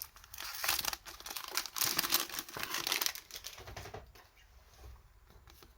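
Foil booster-pack wrapper of a Pokémon trading card pack being torn open and crinkled: dense crackling for about three seconds that then dies away, with a few faint clicks near the end.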